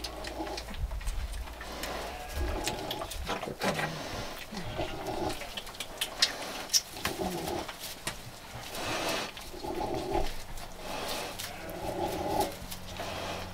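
A farrowing sow grunting softly and rhythmically, short low grunts about once a second, with faint rustling of straw.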